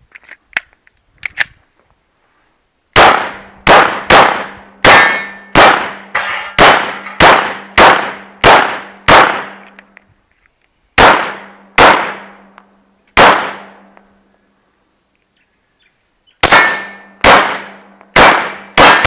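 A few light clicks as a Glock 17A Gen 4 9mm pistol is readied, then the pistol firing in quick strings of about two shots a second, with steel targets clanging as they are hit. There is a pause of a few seconds after the first string, three spaced shots follow, and a faster string comes near the end.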